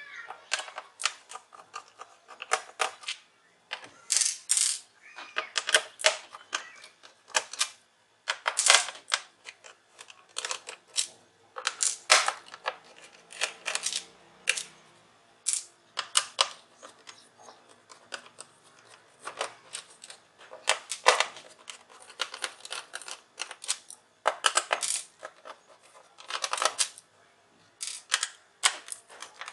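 Small screwdriver backing screws out of an HP notebook's plastic bottom casing: an irregular run of short clicks and scratchy scrapes with short pauses between them.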